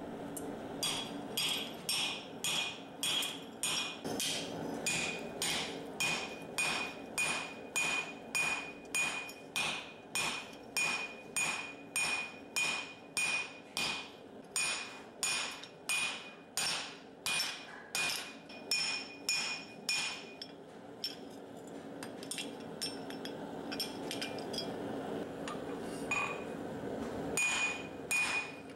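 A hand hammer peens steel rivets on an anvil, about two ringing metal-on-metal blows a second. The blows pause for several seconds around two-thirds of the way through and resume near the end.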